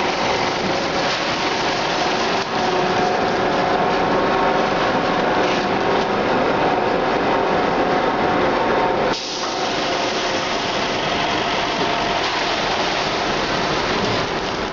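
Fertilizer bagging machinery and belt conveyor running steadily: a dense, loud hiss with a few steady hums. There is a brief dip and change in the noise about nine seconds in.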